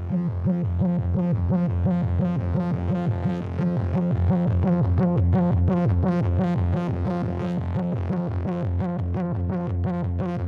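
Electronic background music: sustained synthesizer chords over a quickly pulsing bass.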